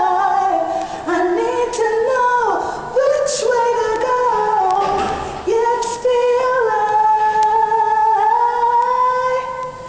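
Gospel singing: a woman's voice holding long, sliding notes, with no clear instrumental backing.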